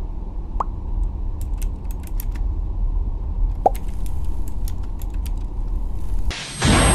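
Steady low ambient hum of a lab room, with scattered light clicks like typing. Two short high chirps sound about half a second in and again near the middle, and a rush of noise comes in near the end.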